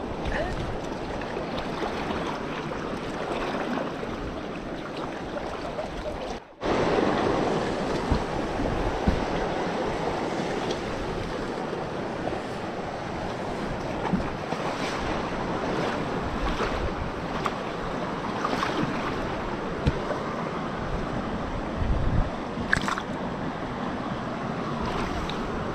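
Fast-flowing river rushing over rocks: a steady wash of moving water. It cuts out for a moment about six and a half seconds in.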